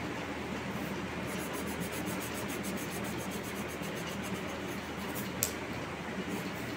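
Steady hum of a running ceiling fan. A faint quick ticking, several ticks a second, runs for about three seconds, and a single sharp click comes near the end.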